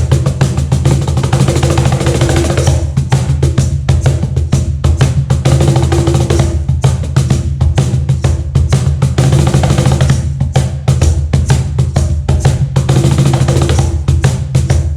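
Meinl cajon played by hand in a fast, dense groove of deep bass strokes and sharp slaps. A steady deep low tone runs underneath.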